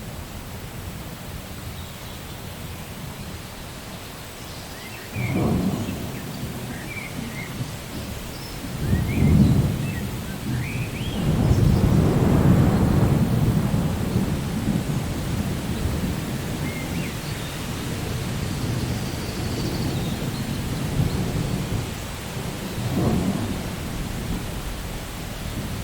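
Steady rain with thunder: a sudden clap about five seconds in, another around nine seconds, then a long rolling rumble, and a smaller clap near the end.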